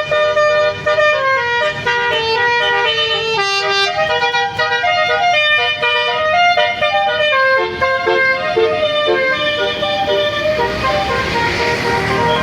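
Indonesian 'telolet basuri' bus horn, a multi-trumpet air horn, playing a tune of several notes at once that step up and down in pitch. It stops about ten and a half seconds in, and vehicle noise follows.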